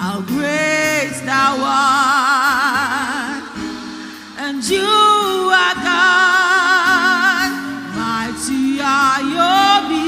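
Live gospel worship singing: a lead voice holds long notes with wide vibrato and sings quick runs over sustained low instrumental notes.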